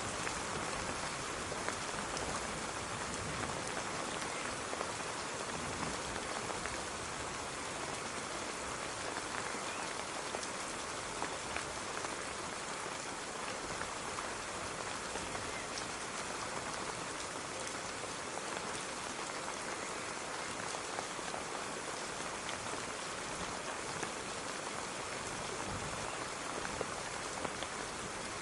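Steady rain falling on a surface: an even hiss with scattered individual drop ticks, holding at one level throughout.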